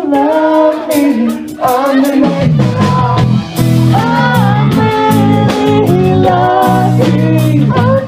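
Live ska band with a female lead singer, saxophone, trumpet, bass guitar and drum kit. For about the first two seconds the notes are held and sparse with little bass, then the full band comes in with the bass and a steady drum beat.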